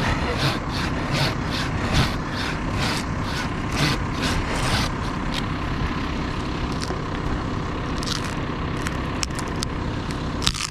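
Hand pruning saw cutting through an oak branch in quick back-and-forth strokes, about two to three a second, for the first half, over a steady engine drone.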